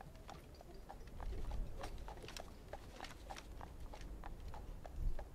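A horse's hooves clip-clopping at a walk on a paved street, about three to four clicks a second, over a low rumble.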